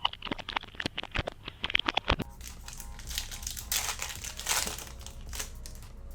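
Trading card packaging being torn open: a quick run of sharp crackles from the crinkling wrapper over the first two seconds, then tearing and rustling.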